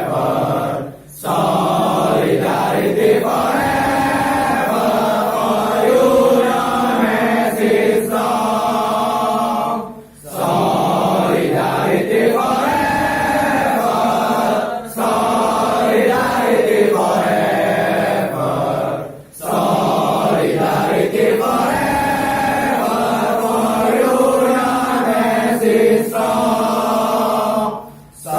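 A group of voices singing a march together in unison, chant-like, with a few brief breaks between lines.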